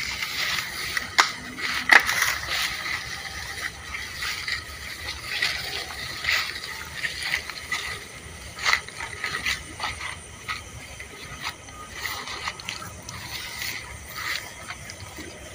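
Insects chirping steadily in the night, with scattered sharp clicks and knocks, the loudest about two seconds in.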